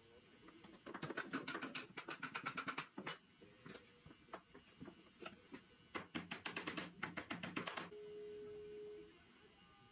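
Glue brush worked in rapid short strokes, about ten clicks a second, in two runs of about two seconds with a few single taps between them. A short steady hum follows near the end.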